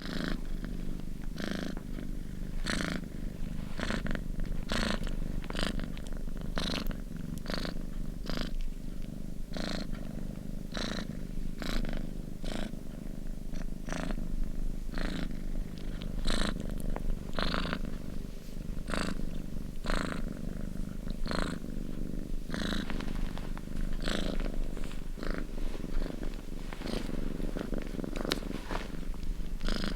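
Domestic cat purring steadily and close up, the purr swelling with each breath about three times every two seconds.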